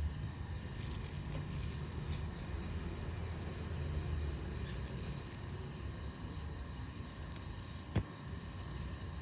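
Metal chain fidget spinner being handled, its chain links jingling and clinking, with one sharp click about eight seconds in.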